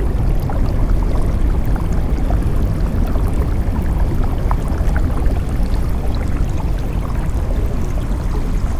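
Underwater ambience: a deep, steady rumble of moving water currents, with many small scattered clicks and crackles over it.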